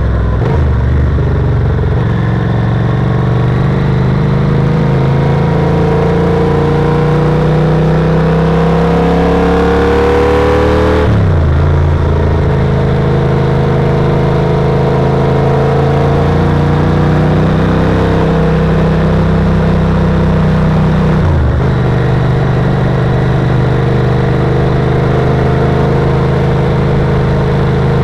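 Yamaha TRX850's 849 cc parallel-twin engine heard from onboard, accelerating hard with its pitch rising, then shifting up about eleven seconds in and again about twenty-one seconds in, before running fairly steadily.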